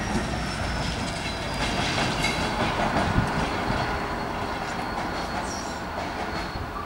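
NIR 111 Class diesel locomotive running away along the track, its sound fading. Wheels click over the rail joints, with a thin high whine near the start.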